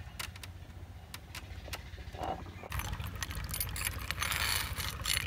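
Hand-turned stone mill grinding soaked rice into batter: stone scraping and clicking against stone, with a low rumble underneath. About halfway through it turns denser and louder, a wet scraping as the batter runs out of the mill's spout.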